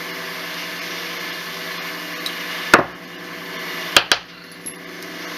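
A few sharp clicks and taps from a hand primer pocket uniformer and a .223 brass case being handled and set down: one loud click about two and a half seconds in, then two in quick succession about four seconds in, over a steady low hum.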